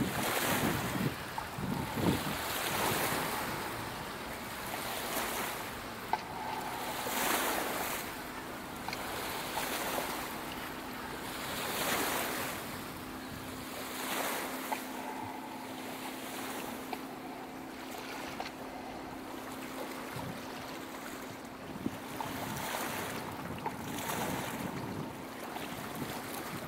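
Sea waves washing onto the shore, the rush swelling and falling back every few seconds, with wind on the microphone. A faint steady hum runs underneath from about six seconds in.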